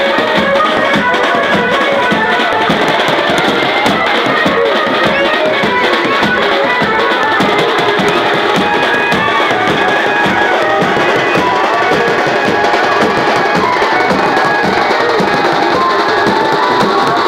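Loud music with drums and percussion keeping a steady beat under melodic lines.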